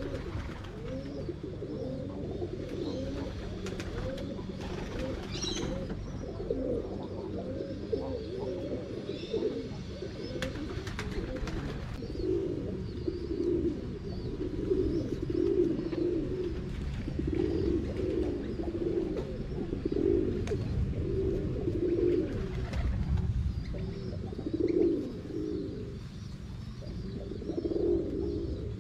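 Domestic pigeons cooing, several birds at once in a continuous, overlapping chorus.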